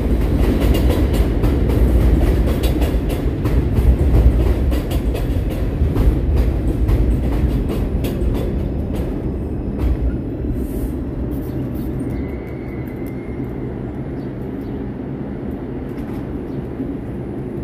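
R142 subway train pulling into an elevated station, its wheels clicking rapidly over the rail joints with a heavy low rumble. The clicking slows and fades about halfway through as the train comes to a stop, leaving a quieter steady hum.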